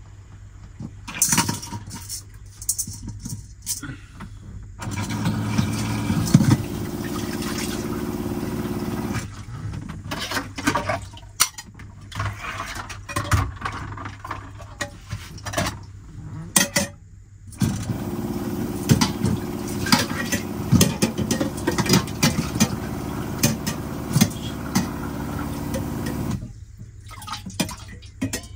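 Water running from a camper van's sink tap with a small electric water pump humming, in two runs: about four seconds from five seconds in, and about nine seconds from seventeen seconds in. Metal pots and pans clatter and knock in between.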